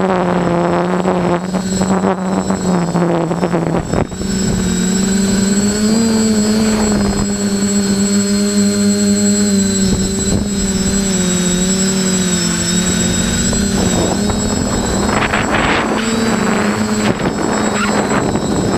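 Small FPV drone's electric motors and propellers whining loudly in flight, the pitch rising and falling as the throttle changes, with a rougher rushing stretch near the end.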